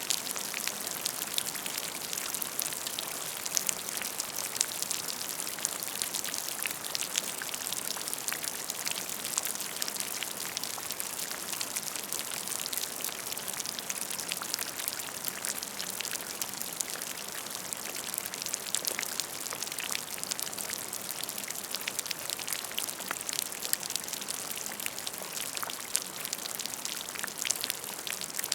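Steady rain falling, a constant hiss dense with the small sharp ticks of drops hitting a surface.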